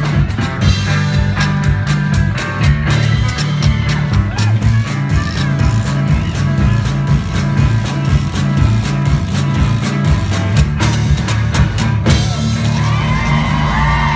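Live blues band playing: electric guitar, washboard scraping and drums driving a fast rhythm. About twelve seconds in the beat stops on a ringing final chord, and the crowd starts cheering and whooping.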